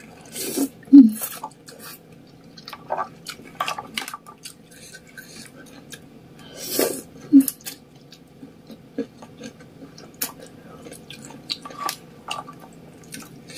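Slurping and chewing of ramen noodles, with scattered light clicks of wooden chopsticks against the bowl. A couple of louder slurps come about a second in and about seven seconds in.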